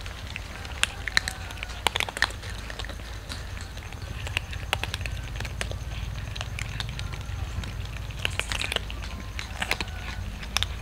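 Several cats crunching dry kibble off a wooden board: a steady patter of irregular crunches and clicks, with a few louder bites.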